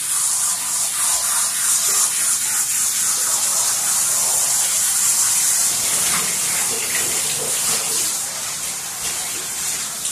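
Handheld shower sprayer spraying water over a large dog's wet coat in a bathtub, rinsing it. A steady high hiss that comes on sharply at the start.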